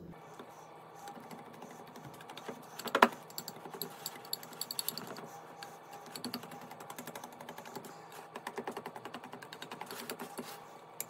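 Wire whisk beating cake batter in a glass bowl: a rapid, uneven clicking of the wires against the glass, with one sharp knock about three seconds in.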